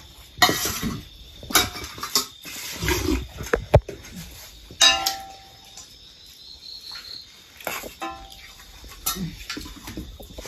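Stainless steel plates, bowls and a ladle clinking and scraping against each other and a wok as food is served. Several sharp separate clinks; one, about halfway through, rings on briefly.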